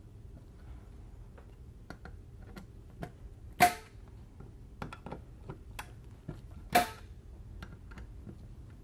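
Torque screwdriver tightening screws down onto a metal FET bar: light ticking as it turns, and two sharp loud clicks, a little over a third of the way in and again about three-quarters through. Each click is the driver breaking over at its set torque of 18 inch-pounds.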